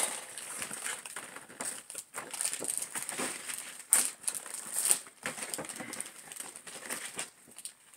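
Toy packaging crinkling and rustling as it is unwrapped and handled, in irregular bursts of rustles and small clicks, with a sharper crackle about four seconds in.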